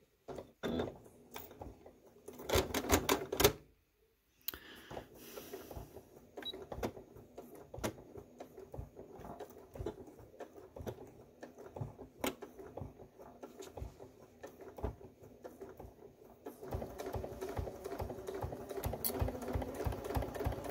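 Electric sewing machine stitching in stop-and-start runs: a short fast burst about two seconds in, a quieter stretch of stitching through the middle, then steady, louder rapid ticking over the last few seconds.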